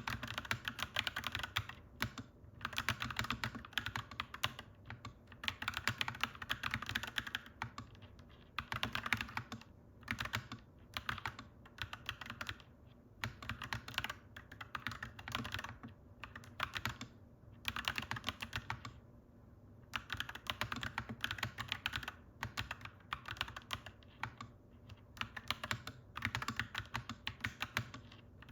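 Clacky mechanical keyboard being typed on in quick runs of keystrokes, with brief pauses between bursts.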